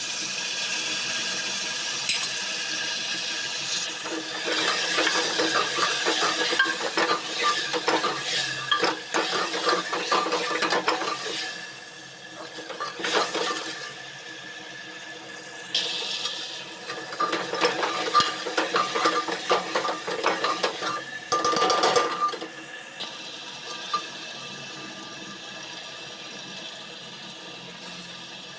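Metal utensil stirring and scraping in a cooking pan, clinking against it in two long runs of quick strokes, over a steady hiss.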